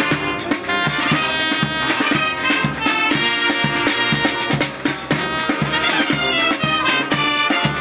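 Brass band playing a march, with wind instruments carrying the tune over a steady drum beat.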